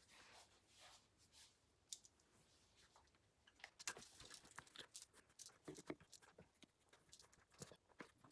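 Faint scattered clicks and small knocks of Lego Technic plastic parts being handled and fitted onto a large rubber-tyred wheel, most of them in the second half.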